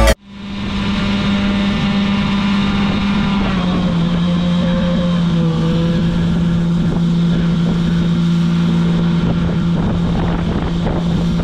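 Tractor engine running steadily with a strong, even hum that drops slightly in pitch about three and a half seconds in, with some wind on the microphone.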